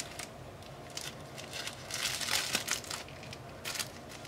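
Thin plastic bag crinkling as it is squeezed and shaken to empty powder into a steel bowl. The rustling comes in short runs, loudest about two seconds in and again briefly near the end.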